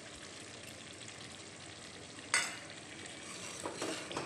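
Soybean curry gravy bubbling and sizzling steadily in a steel pan over the gas flame, with one sharp knock about halfway through. Near the end a spoon starts stirring the freshly added cream into the gravy in short scraping strokes.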